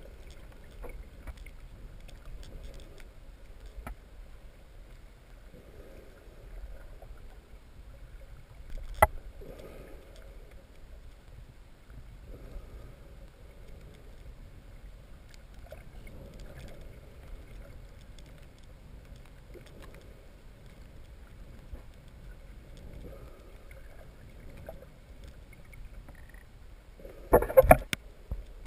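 Muffled underwater sound picked up by a camera held just below the sea surface: a low, steady rumble with soft swells every few seconds. There is one sharp click about nine seconds in, and a loud burst of water noise near the end.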